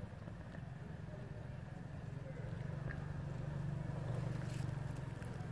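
Low, steady engine drone, growing louder over the second half.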